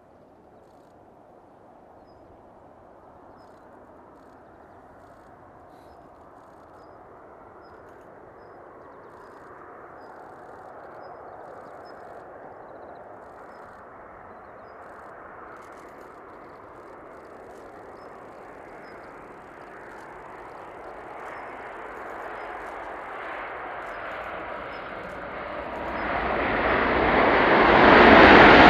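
Jet noise of a Boeing 787-8 airliner with Rolls-Royce Trent 1000 engines on final approach, a steady rushing that grows slowly louder and brighter as it nears. About two seconds before the end it becomes much louder as the airliner passes close and rolls out along the wet, slushy runway.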